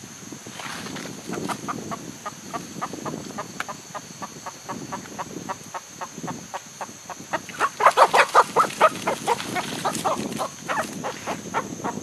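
Chicken clucking in a long run of short, sharp notes, about four or five a second. The notes grow louder and come thicker for a second or two about two-thirds of the way through.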